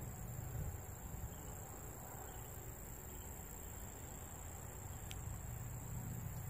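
Insects in the trackside vegetation trilling as one steady, unbroken high-pitched tone. Under it is a low rumble that swells near the start and near the end, and there is a single faint tick about five seconds in.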